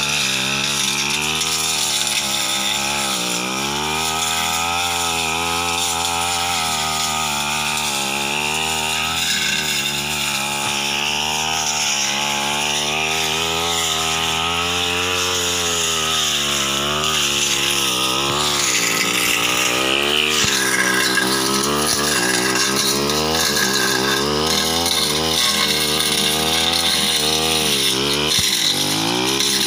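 Tasto backpack brush cutter's engine running under load while the blade cuts through ferns and brush. The engine pitch keeps rising and falling every second or two as the cutter bites into the growth and frees up again.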